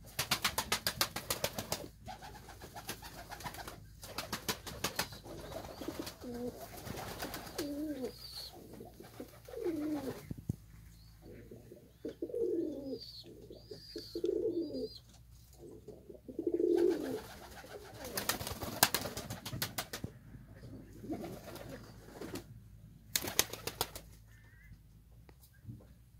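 Fancy pigeons cooing, a string of low, bending coos through the middle. Three short bursts of rapid clattering, near the start, about two-thirds in and near the end, are louder than the coos.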